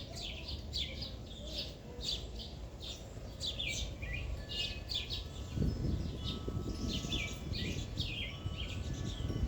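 Birds chirping, a quick run of short high notes that keeps going throughout, with a low rumbling noise coming in about halfway through.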